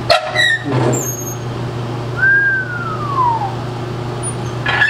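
Wood stove door being unlatched and swung open: sharp latch clicks in the first second, a single falling squeak from the hinge in the middle, and more clicks near the end. A steady low hum sounds underneath.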